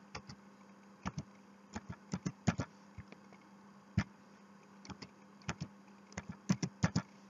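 Computer keyboard keys and mouse buttons clicking: a run of sharp, separate clicks, many in quick pairs, the loudest about four seconds in, over a steady low hum.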